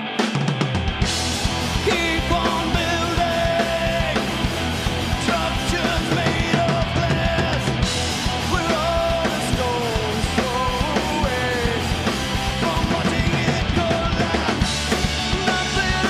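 A punk rock band playing live: a lone guitar is joined by drums and bass guitar within the first second, and the full band plays on.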